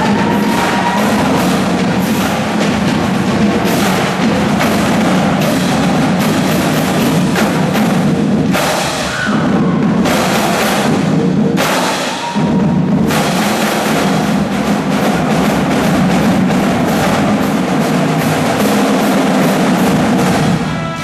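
A drumline of snare drums and marching bass drums playing a fast, dense cadence. It breaks off briefly twice in the middle.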